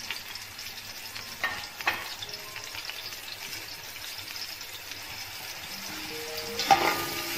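Sliced onions sizzling in hot oil in a metal pot, a steady frying hiss. There are two sharp clicks about a second and a half and two seconds in. Near the end comes a louder cluster of clinks and scrapes as a metal spoon stirs them against the pot.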